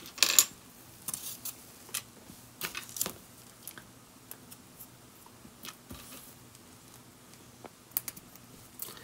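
Plastic LEGO Technic parts clicking and tapping as they are handled and pressed together by hand: scattered sharp clicks, the loudest just after the start, several more in the first three seconds and a couple near the end.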